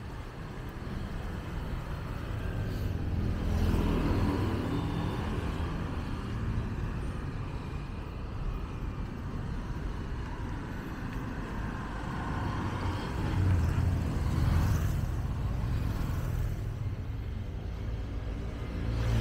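Motorbike engines passing along a street over steady traffic noise, louder about four seconds in and again around fourteen seconds.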